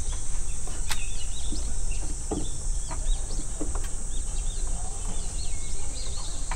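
Small birds chirping over and over in short high calls, over a steady low rumble, with one sharp click about a second in.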